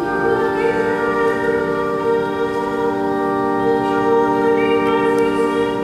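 Organ playing one long sustained chord, its notes held perfectly steady.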